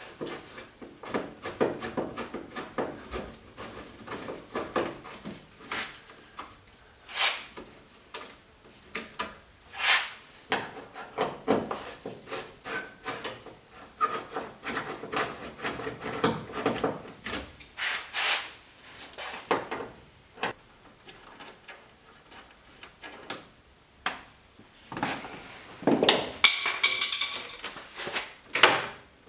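Hand tools and hardware being worked on a truck's door while its bottom screws are taken out: irregular clicks, light knocks and scraping, with a louder stretch of scraping and rattling near the end.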